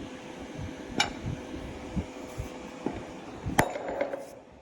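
Sharp metal-on-metal strikes on steel bearing races: two loud hits, about a second in and near the end, the second ringing briefly, with a few lighter clinks between them as the old race is set against the new one to drive it in.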